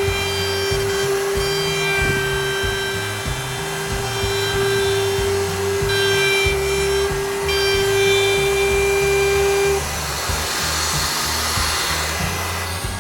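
Handheld router with a laminate-trimming bit running at a steady high whine as it trims Formica laminate flush along the countertop edge; the whine stops about ten seconds in.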